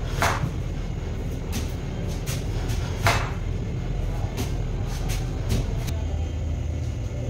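Steady low rumble with scattered sharp knocks and clicks, the loudest about three seconds in.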